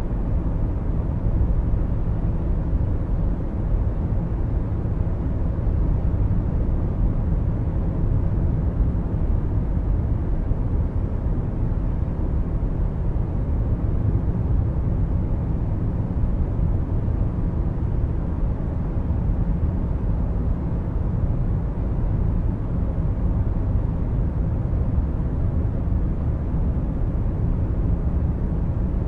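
Steady low rumble of a car driving, heard from inside the car: engine and tyre noise, even throughout with no sudden events.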